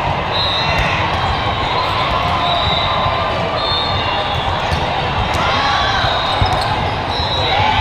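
Echoing din of a volleyball tournament hall: volleyballs being struck and bouncing, with many sharp knocks over a constant murmur of voices from the surrounding courts.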